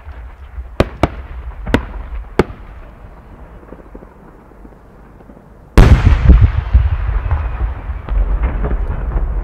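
A No. 10 (about 30 cm) aerial firework shell: four sharp pops as it climbs in the first couple of seconds. About six seconds in comes a sudden loud boom from the shell bursting, which rolls and rumbles on to the end.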